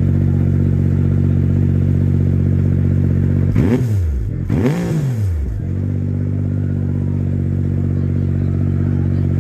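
Nissan GT-R Nismo GT3 race car's twin-turbo V6 idling, blipped twice a little past the middle: two quick revs that rise and fall in pitch, then it settles back to a steady idle.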